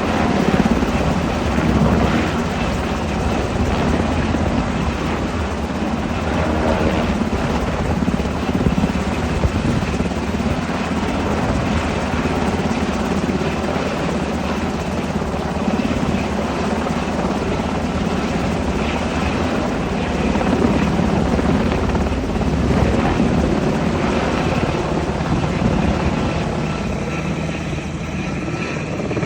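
UH-60 Black Hawk helicopter running steadily with a continuous low rotor beat under the whine of its twin turboshaft engines.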